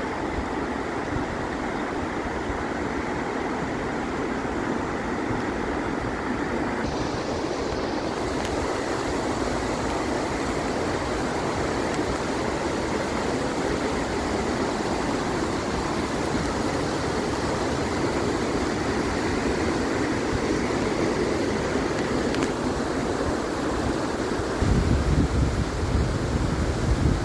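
Steady rushing of white water from the Una river's cascades and waterfall at Štrbački buk. Near the end, wind buffets the microphone with low rumbles.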